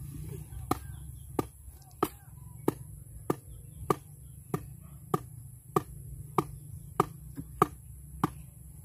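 Metal hand tool striking the ground in a steady rhythm: thirteen sharp strikes with a brief ringing, about one every 0.6 seconds, while digging a hole for a post.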